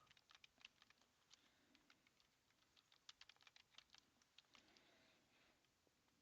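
Faint typing on a computer keyboard: scattered key clicks in two short runs, the second starting about three seconds in.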